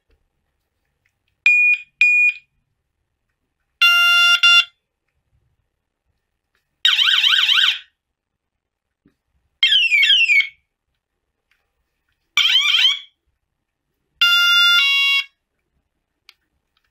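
Battery-powered electronic bicycle siren sounding its different tones one after another, each a short burst of about a second with a pause between. In order: a double beep, a two-note tone, a fast warbling wail, quick falling sweeps, rising sweeps, then the two-note tone again. It sounds strong on freshly fitted batteries.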